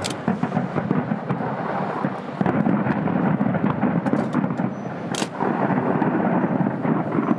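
Fireworks going off over a steady rumble, in a dense run of many small cracks, with one sharper report about five seconds in.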